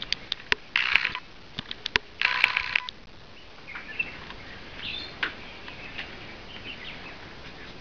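A dog and a monkey play-fighting on a wooden deck: a run of sharp clicks and taps, two short loud harsh bursts about a second apart, then faint short chirps.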